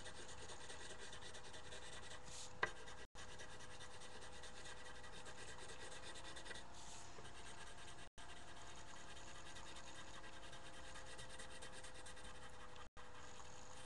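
Colored pencil rubbing and scratching on paper as a drawing is shaded, over a faint steady hum. A single sharp click comes about two and a half seconds in, and the sound cuts out for an instant three times.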